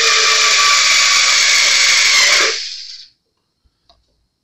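Small cordless drill running steadily at full speed, drilling a pilot hole in a guitar headstock for a tuner's retaining screw, then spinning down about two and a half seconds in; a few faint ticks follow.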